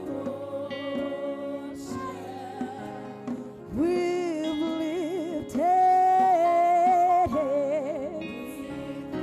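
Gospel worship music: a wordless sung line with vibrato over sustained chords, swelling to a long held note about six seconds in.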